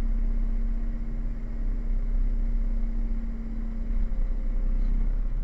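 Rock truck's diesel engine running steadily, heard from inside the cab as a low drone with a steady hum that drops away near the end.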